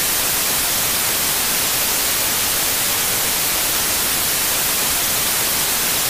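Television static: the steady, even hiss of an untuned analogue TV's snow.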